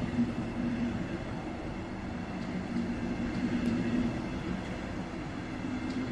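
Double-deck regional train coaches rolling past on the track: a steady rumble of wheels on rails with a low hum and a few faint clicks.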